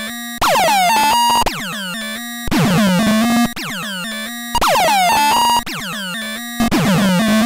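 Hand-built analog noise machine playing a looping glitchy electronic pattern: rapid falling pitch sweeps over stepped, buzzy tones, with a louder stretch of about a second roughly every two seconds.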